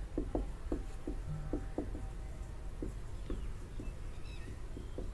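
Marker pen writing on a whiteboard: a run of short, irregular strokes and squeaks, several a second, as letters are written.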